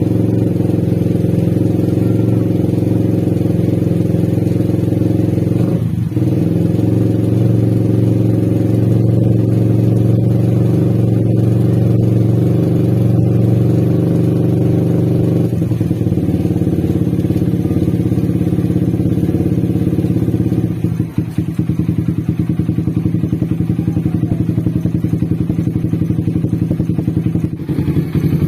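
Suzuki Satria FU 150 motorcycle engine running steadily, then dropping to a slower idle with distinct pulsing about three-quarters of the way through.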